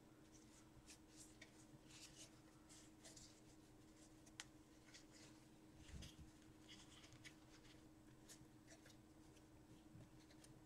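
Near silence with faint rustling and light ticks of hockey trading cards being handled and sorted on a table, over a faint steady hum. A soft tap comes about four seconds in and a low bump about six seconds in.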